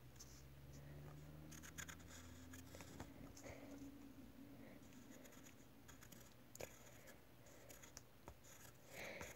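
Faint scratching of a pencil tip on paper as short, irregular strokes are drawn.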